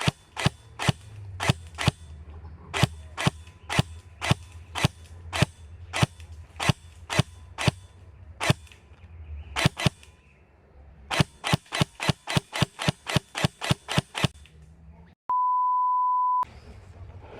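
Airsoft gun firing single shots as sharp cracks, in runs of about three to four a second with short pauses. Near the end comes a steady beep tone lasting about a second.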